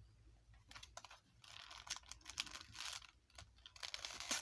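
Plastic toy-surprise packaging being handled and opened: irregular crinkling and rustling with scattered sharp clicks, busiest in the middle.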